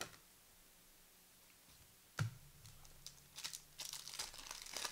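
A sharp knock about two seconds in, then the crinkling and tearing of a basketball trading-card pack's wrapper being torn open over the last couple of seconds.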